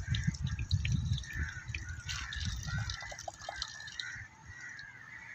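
Water running from an outdoor wall tap and dripping and splashing into cupped hands as boys drink from it.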